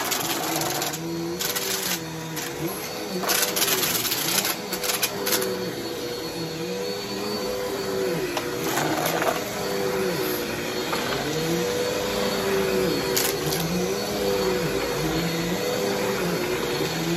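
Upright vacuum cleaner running on carpet, its motor hum swinging up and down in pitch with each push and pull of the head. Metal can pull tabs and debris rattle up into it in quick clicks, several in the first few seconds and a few more later.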